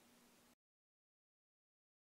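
Near silence: faint room tone that cuts off to complete silence about half a second in.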